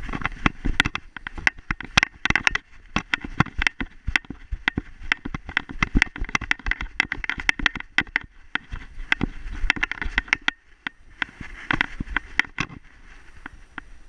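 A dog running through snow, heard through a camera strapped to its harness: a rapid, irregular stream of crunching footfalls and knocks of the mount jolting with each stride. It starts suddenly, eases off briefly after about ten seconds, picks up again, then quietens near the end.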